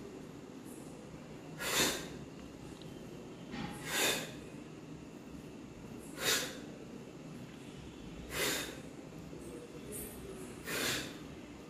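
A person breathing out hard in short, noisy exhales, five times about two seconds apart, in rhythm with an elbow-to-knee cardio exercise.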